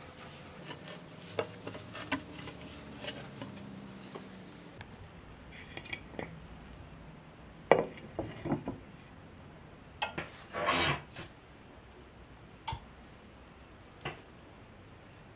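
Kitchenware being handled: scattered knocks and clinks of a ceramic plate, a frying pan and a glass pan lid, the sharpest about eight seconds in, with a short scrape a couple of seconds later.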